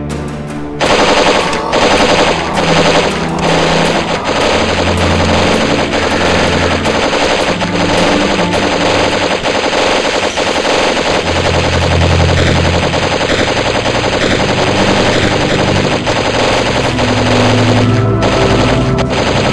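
Rapid automatic gunfire sound effects, a continuous stream of fast shots starting about a second in, laid over background music with low sustained bass notes.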